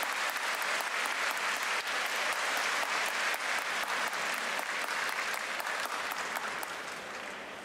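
Crowd of spectators applauding, a dense patter of many clapping hands that eases off near the end, greeting the announcement of the referee.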